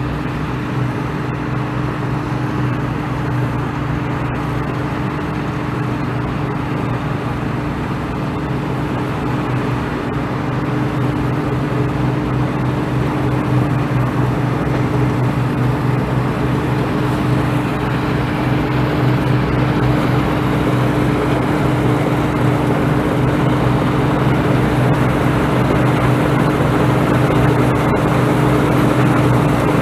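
Farm machine engine running steadily with a constant hum, growing gradually louder as the machine comes back toward the listener.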